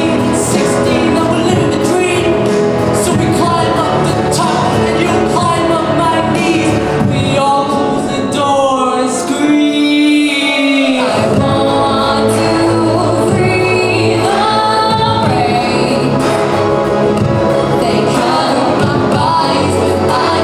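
Pop song with orchestral cinematic backing and sung vocals, the voices layered like a choir. The low backing drops away briefly about halfway through, leaving a held note before the full arrangement returns.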